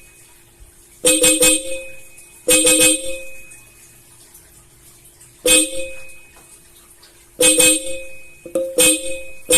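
Pair of Hella Supertone 12 V disc horns, high and low tone sounding together, given about six short blasts with pauses between. They are running off a weak battery, which the owner says makes them sound a bit odd.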